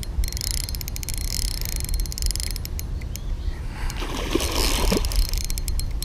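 Fishing reel clicking and whirring as line is worked against a hooked alligator, over a steady low rumble of wind on the microphone. There is a brief rush of noise about four seconds in.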